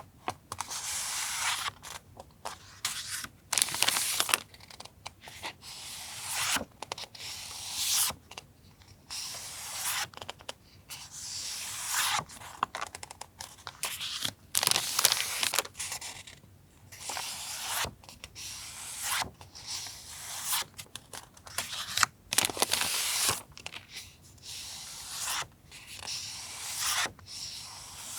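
Paper stationery and its packaging being handled, rustling and crinkling in repeated short bursts with brief pauses between.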